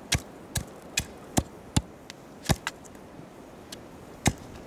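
Hatchet chopping a stick lengthwise against a log to trim it: a run of sharp wooden chops, about eight, irregularly spaced, with a longer pause before the last one near the end.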